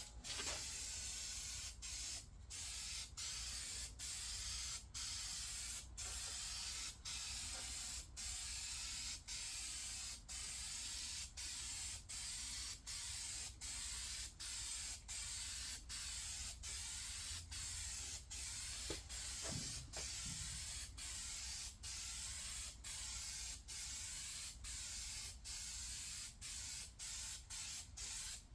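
Aerosol can of gray filler primer spraying in a long run of short passes. The hiss stops briefly between passes, about once or twice a second.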